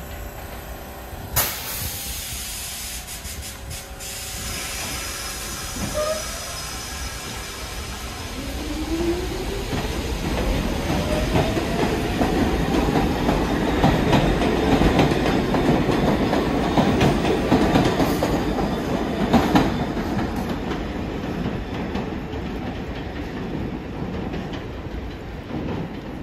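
New York City subway train pulling out, its traction motors giving a rising whine as it gathers speed, with the rumble and clack of wheels on the rails. The sound swells to its loudest past the middle and fades near the end, with a sharp click about a second in.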